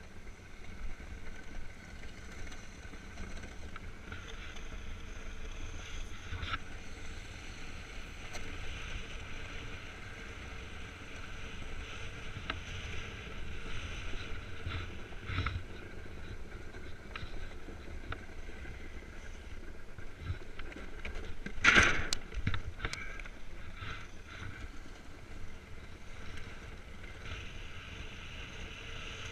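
Iceboard's skate runners hissing steadily as they glide over bare lake ice, with low wind rumble on the microphone and scattered sharp clicks. About three-quarters of the way through comes one loud sudden hit, followed by a few smaller knocks.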